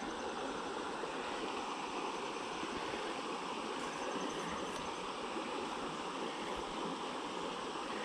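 Small creek's water running steadily, an even rushing.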